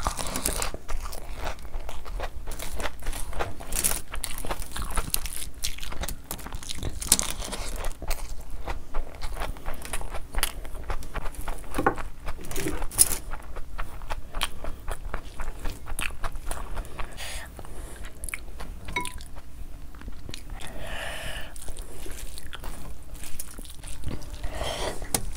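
Close-miked chewing and lip smacking of handfuls of mutton curry and vegetable pulao eaten by hand: a dense run of short clicks and smacks. The hand also squishes and scrapes rice on a foil-lined tray.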